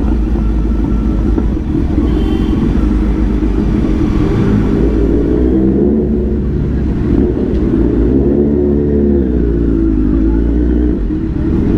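Kawasaki Z900's inline-four engine with an aftermarket full-system exhaust, running at low speed. A low rumble whose pitch rises and falls with the throttle about four and again about eight seconds in.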